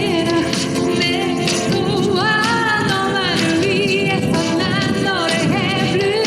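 A woman singing an upbeat pop song live, her voice gliding and held with vibrato over a band accompaniment with a steady beat.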